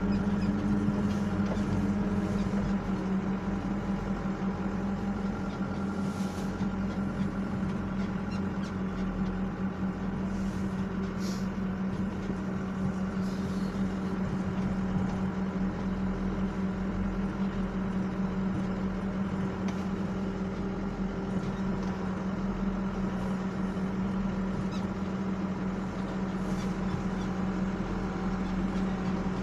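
Mecalac machine's diesel engine running at a steady speed, heard inside its cab, with a few faint rattles and clicks.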